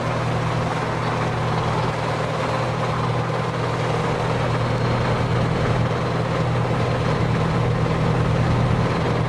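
A small boat's engine running at a steady low drone, heard from on board.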